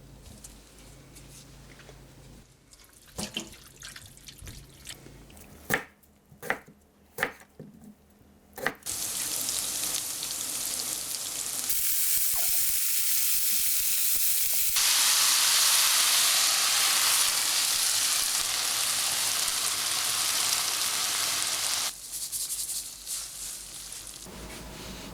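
A few sharp knocks, then from about nine seconds in a loud, steady sizzle of kimchi frying in a pan, growing louder in steps and cutting off suddenly near the end, followed by a few light clicks.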